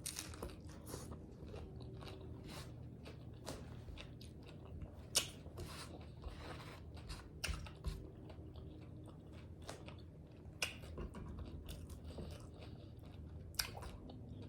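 A person chewing a taco close to the microphone: irregular soft crunches and wet mouth clicks, with a few louder bites.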